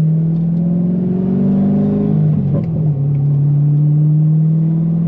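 Twin-turbo V8 of a C6 Corvette heard from inside the cabin while driving, its engine note rising slightly, then breaking up briefly about halfway through and settling steady at a slightly lower pitch.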